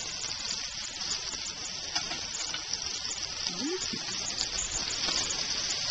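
Oiled steaks sizzling on a hot cast iron grill pan over a rocket stove's wood fire, a steady hiss, as a metal spatula works under them, with a light click about two seconds in.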